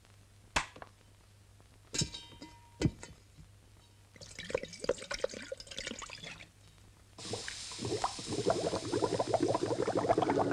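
Food cooking in a pot on an electric hotplate. A few scattered clicks come first, then irregular bubbling pops from about four seconds in. About seven seconds in, these turn into a louder, steady sizzle full of pops.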